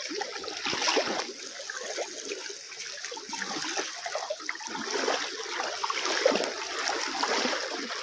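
Water splashing and sloshing irregularly around the legs of a man wading in shallow river water as he hauls in a cast net.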